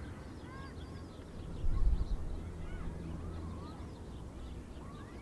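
Many short bird calls rising and falling in pitch, as from a distant flock, over a steady low rumble that swells briefly about two seconds in.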